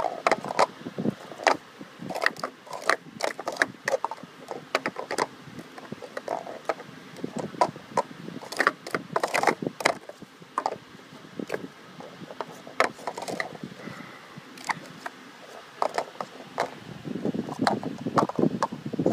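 Plastic sport-stacking cups being stacked and unstacked at speed on a wooden table: a rapid, irregular clatter of cups clicking into each other and tapping and sliding on the boards, thickest near the end.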